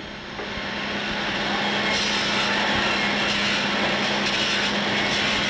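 Motor-driven polishing wheels running, with a steady grinding hiss of metal being buffed. It swells over the first two seconds, then holds steady.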